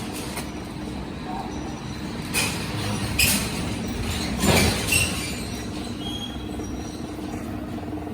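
FR-770 continuous band sealer running: a steady mechanical hum with a constant tone. A few brief louder noises come between about two and five seconds in.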